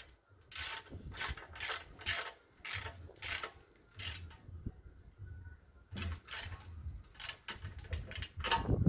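Ratchet wrench tightening a 24 mm fitting: short clicking strokes, about two or three a second, with a pause in the middle before the clicking resumes.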